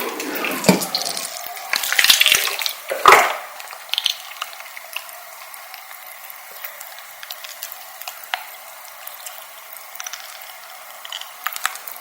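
Large, very wet clear slime squelching and sloshing as it is handled, loudest in the first three seconds, then only faint small pops and crackles.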